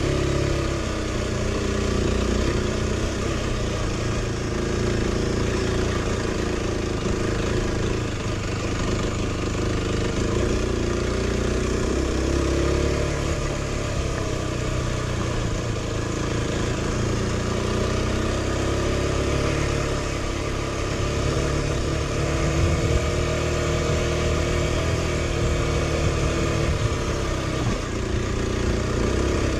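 Aprilia RX125 motorcycle engine running while under way, its pitch rising and falling with the throttle.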